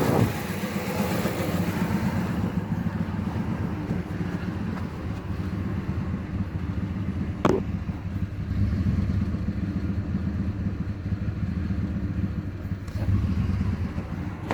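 2008 Dodge Ram 1500 engine idling roughly with an uneven, lumpy rumble, the sign of the multiple misfires it is logging. There is one sharp click about halfway through.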